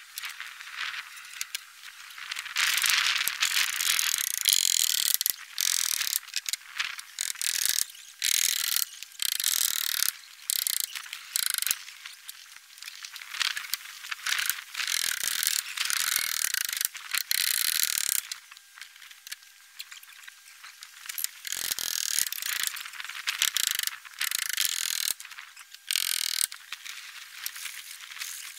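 Snow crunching and scraping in irregular bursts, some lasting a second or more with short breaks between, as a person moves and works on a snow-covered roof.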